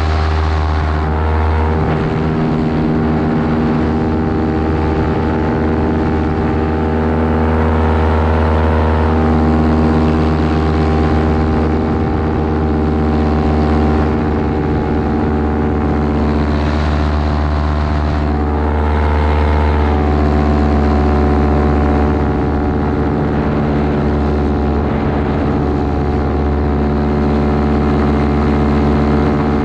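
Parajet Maverick paramotor's Vittorazi Atom 80 single-cylinder two-stroke engine and propeller running steadily in flight, close up. Its pitch rises and falls slightly a few times.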